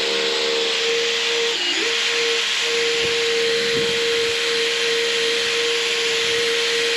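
Drill spinning a rubber eraser wheel against the hull to strip old vinyl lettering: a steady motor whine over a loud rushing hiss, the pitch dipping briefly about a second and a half in.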